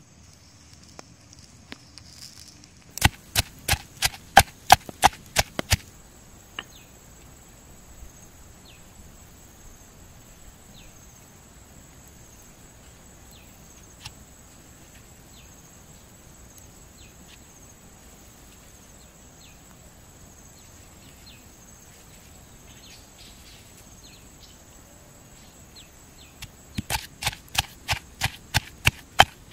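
Pestle pounding chilies in a stone mortar: quick, sharp strikes about four a second, in a run of about three seconds near the start and again from near the end. In between there is only quiet outdoor background with a few faint clicks.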